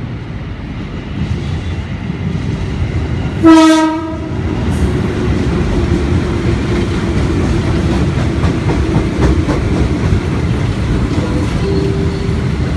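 KRL Commuter Line electric train, an ex-JR 205 series set, sounds one short horn blast about three and a half seconds in. It then runs in alongside the platform with a steady rumble and wheel clatter that grows louder.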